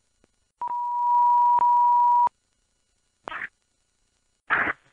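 Fire radio channel giving a steady one-pitch beep tone lasting a bit under two seconds, then two brief bursts of radio static as transmissions key up and drop.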